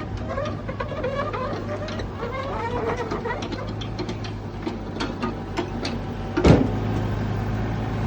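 Heavy machinery engine running steadily, with scattered clicks and rattles and one loud metallic clank about six and a half seconds in.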